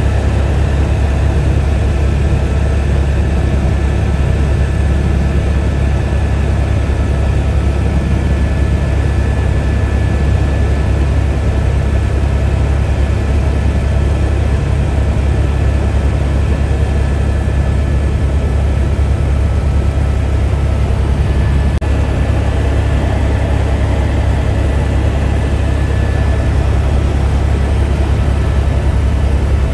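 Helicopter in flight heard from inside the cabin: the loud, steady drone of its engine and rotor, with a thin steady whine above it.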